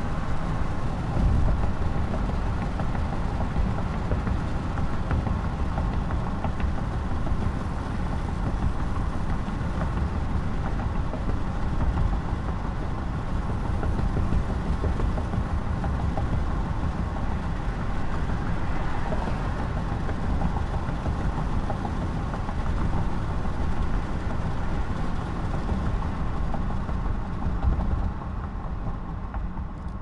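A car driving over a bridge, heard through an open window: a steady low rumble of tyres and engine with rushing air. It grows quieter and duller over the last couple of seconds.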